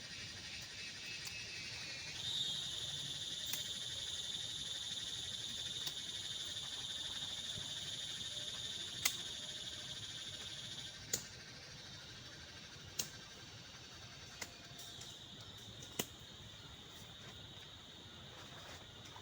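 Steady high-pitched insect trilling, such as crickets, starting about two seconds in, fading out around the middle and returning briefly near the end. About five sharp separate clicks sound over the second half.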